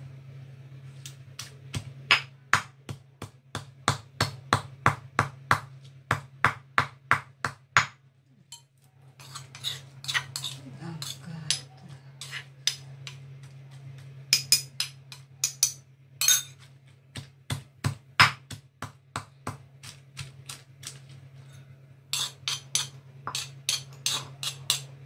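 Stone pestle pounding in a granite mortar (cobek/lesung batu), sharp stone-on-stone strikes at about three a second, breaking off for a few seconds of scattered knocks and metal spoon scraping before the pounding resumes near the end; dried chillies are being ground into a paste. A steady low hum sits underneath.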